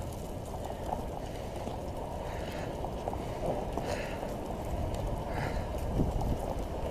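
Steady low roaring rush of wind and burning wildfire on a body-worn camera microphone, with a soft hiss coming back about every second and a half.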